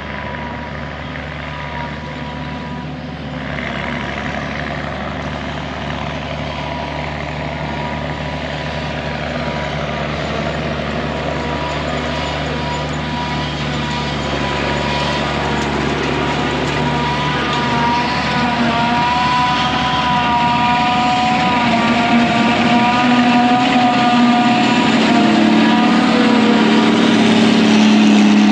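Heavy farm machinery engine running with a whining tone over it, growing steadily louder as the machine draws near.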